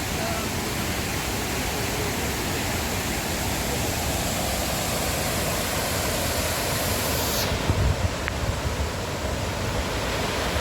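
Steady rush of the Putna waterfall, fast water pouring over rocks. About seven seconds in the hiss turns duller, and a few low bumps follow.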